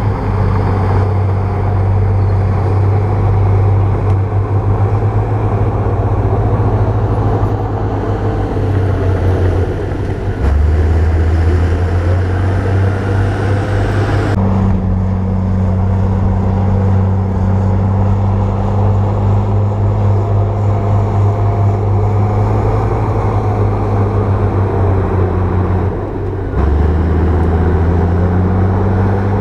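Bulldozer's diesel engine running steadily under work, its note shifting several times as the load and engine speed change.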